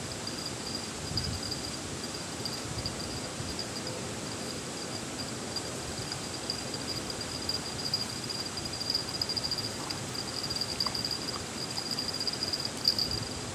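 An insect trilling at a high pitch in quick pulses, growing louder toward the end, over the steady rush of a fast-flowing river.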